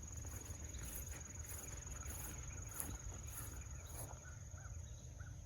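Insects calling: a steady high-pitched drone with a regular pulsing chirr above it that stops about four seconds in, over a faint low rumble.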